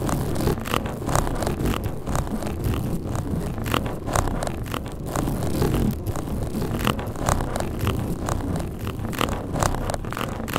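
Heavily amplified close-up recording: a constant low rumble with irregular scratchy clicks several times a second.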